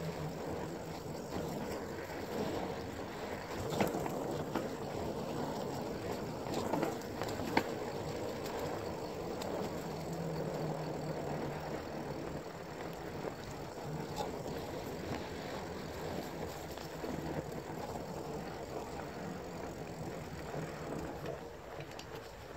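Mountain bike rolling fast down a dirt singletrack: a steady rush of tyres on dirt and wind over the microphone, with a few sharp knocks and rattles from bumps, about four seconds in and again near seven and a half seconds.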